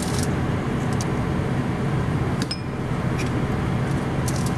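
A knife cutting into a baked pie crust in a thin aluminium pie pan: a few small, sharp clicks and crinkles as the blade meets the crust and the metal pan, over a steady low background hum.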